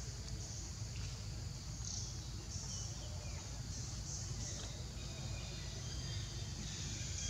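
Outdoor ambience: a steady low rumble under high insect chirring that comes and goes in short patches.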